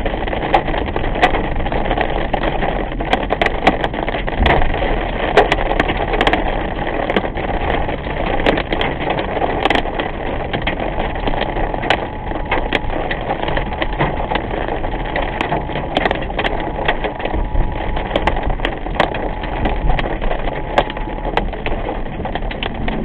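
Rain hitting the car's windshield and roof, heard inside the cabin as a steady wash full of sharp ticks from the drops, over tyre noise on the wet road.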